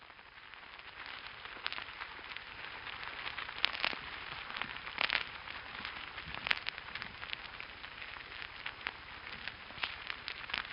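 Ants crawling over piezo contact microphones stuck into the top of an ant hill, picked up as a dense, steady crackle with scattered louder clicks. It fades in over the first couple of seconds.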